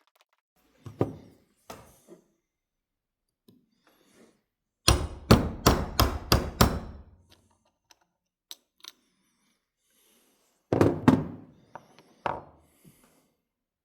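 Knocks and sharp metallic clicks from a small metal folding-knife tool being handled: a few single clicks, then a quick run of about seven sharp clicks about five seconds in, and a couple of heavier knocks near the end.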